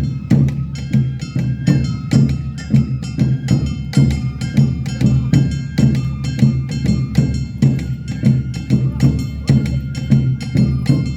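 Awa odori festival band playing: drums and sharp metallic strikes keeping a steady beat about twice a second, under held high melody notes.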